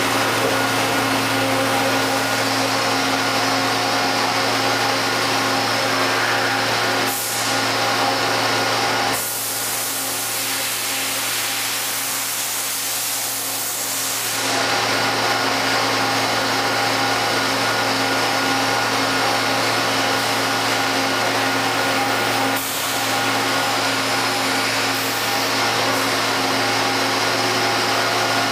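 Niigata HN100B horizontal machining center running with its power on: a steady machine hum made of several constant tones, while its rotary pallet table turns. From about 9 to 14 seconds in, a louder hiss rises over the hum and then stops.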